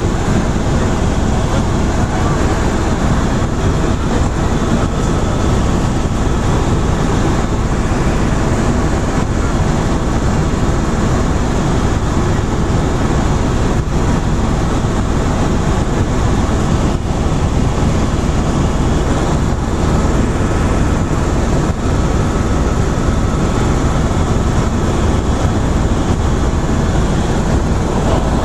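Helicopter in flight heard from inside the cabin: a loud, steady rush of rotor and engine noise with a faint steady whine under it.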